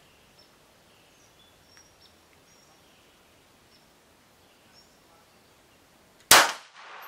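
A single shot from a Smith & Wesson M&P380 Shield EZ pistol in .380 ACP, sharp and loud, about six seconds in. Before it there are a few seconds of quiet with faint high chirps in the background.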